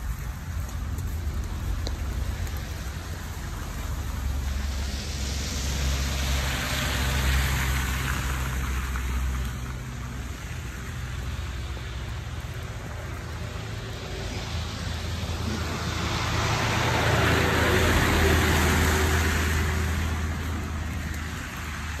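Two vehicles drive past one after the other, each a swell of road noise over a low rumble that rises and fades over several seconds; the second, near the end, is the louder.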